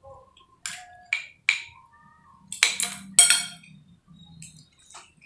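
Cutlery clinking against a plate several times, some strikes leaving a short ringing tone, then two louder scraping bursts near the middle as a piece of bitter gourd is cut.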